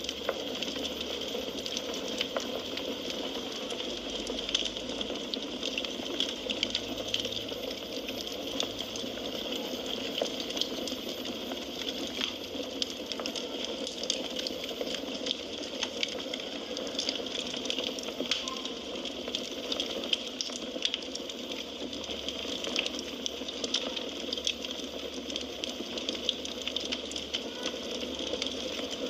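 Firewood burning: a steady hiss of flames with frequent small, irregular crackles and pops.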